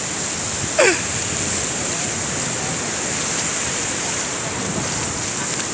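Sea surf breaking and washing up the sand, mixed with strong wind on the microphone, a steady rushing noise. About a second in there is one short falling vocal cry.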